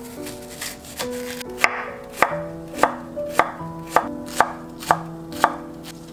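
Chef's knife slicing the white stalk of a Korean leek on a wooden cutting board: even chopping strokes about two a second, starting about a second and a half in.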